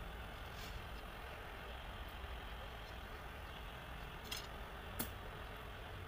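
A steady low rumble with a hiss above it, like a distant engine idling. About four seconds in there is a short rattle of ticks, then a single sharp click about a second later.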